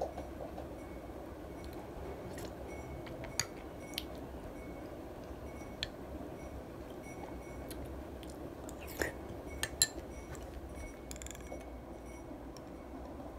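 Metal spoon clinking against a glass dessert bowl while stirring yogurt: a scattering of light, separate clinks, the sharpest a little under ten seconds in, over steady low background noise.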